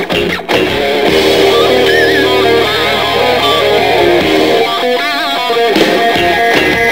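Rock music with strummed electric guitar, loud and continuous, dipping briefly about half a second in.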